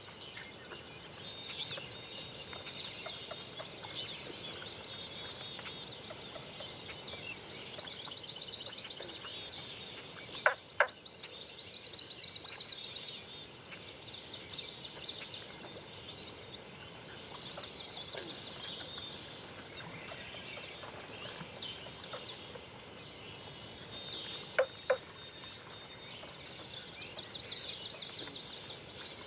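Forest birdsong from several birds: a high, fast trill repeats every few seconds over steady chirping. Twice a short, loud doubled note or knock cuts through.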